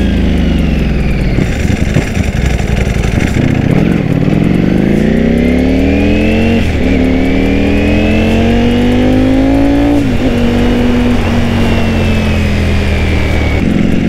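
Ducati Panigale V4S's 1103 cc V4 engine under way. Its pitch falls at first, then climbs in two long pulls with a brief dip between them. It drops sharply about ten seconds in as the bike shifts from second to third gear, then holds steady at a lower pitch.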